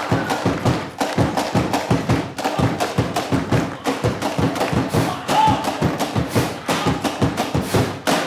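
Fast rhythmic percussion beaten out on kitchen utensils, pots and mortars, a dense run of knocks and thuds several times a second.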